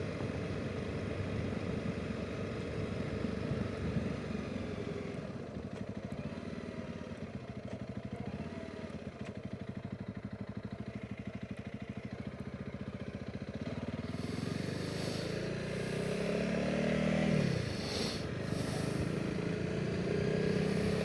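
Honda CRF300 Rally's single-cylinder engine ticking over at low revs, then pulling away about two-thirds of the way in and rising in pitch, with a dip and climb as it changes gear. Wind noise on the microphone builds as speed picks up.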